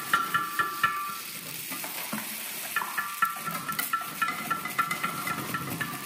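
Dry groats pouring and trickling out of a homemade silo into a plastic toy trailer, a steady hiss of grains with small clicks. A pulsing high tone at a few fixed pitches sounds over it in two stretches, one near the start and one from about three seconds in.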